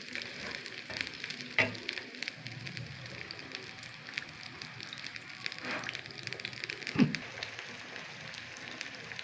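Thin potato slices frying in hot ghee in a wok: a steady crackling sizzle. Two louder knocks stand out, about one and a half seconds in and near seven seconds.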